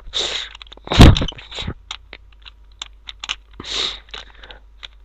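Plastic Rubik's cube being twisted by hand: clicks and scraping of stiff layers turning, with one louder knock about a second in. The cube is a cheap one whose sides are hard to turn.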